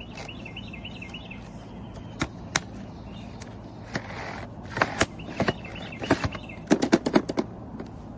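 Sharp clicks and knocks, scattered at first and then several in quick succession about seven seconds in, over a low steady hum. A faint warbling chirp comes near the start and again about five seconds in.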